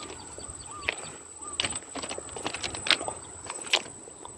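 Footsteps through dry vegetation: irregular snaps and crackles, about a dozen, over a steady high-pitched buzz from insects, with a few short faint chirps.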